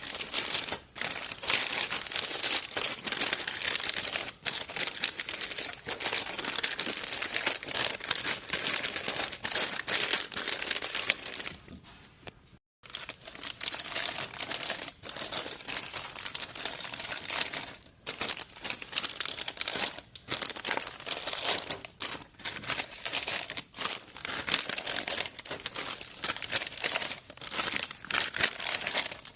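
Plastic snack bags of chips crinkling and rustling continuously as they are handled and packed, with a short pause about twelve seconds in.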